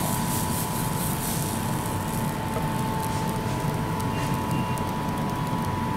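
Potato pancakes cooking in a multi-cavity pan on a gas stove: a steady low rumble and hiss, with a faint steady high whine.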